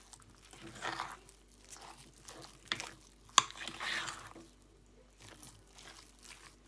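A hand mixing and squeezing soft quark dough in a bowl, in irregular strokes, with one sharp tick about three and a half seconds in.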